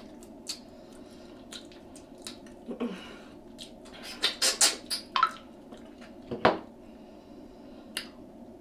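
Close-miked eating: scattered sharp mouth clicks and wet smacks while chewing, bunched together about four to five seconds in, with one louder knock about six and a half seconds in.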